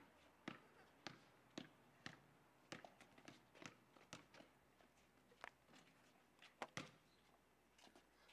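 Faint footsteps on a concrete path, about two a second at first, then breaking into scattered, irregular knocks.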